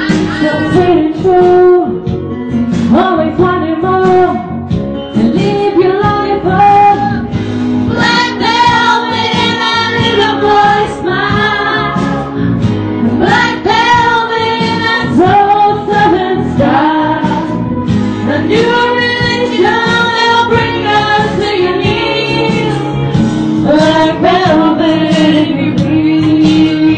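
A singer performing over loud amplified music, the voice carrying long sung lines that rise and fall throughout.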